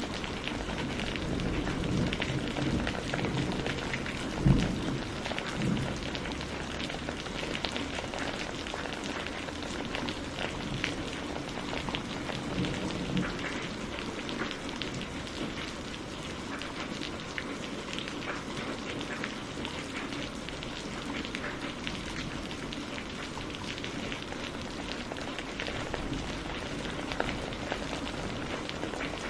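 Steady rain falling on hard surfaces, with many separate drops ticking through the hiss. A single low thump about four and a half seconds in is the loudest sound.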